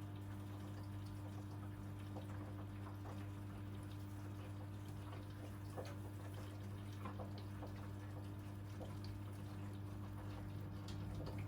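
Hoover Electra 535 washing machine filling with water for the wash: water trickling and splashing into the drum, with small scattered drips over a steady low hum.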